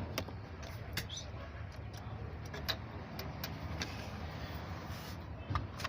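A low steady mechanical rumble with scattered sharp clicks and taps.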